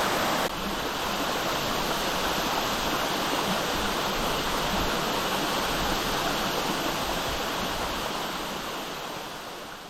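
A 35 m waterfall rushing steadily. The level drops slightly about half a second in and fades out near the end.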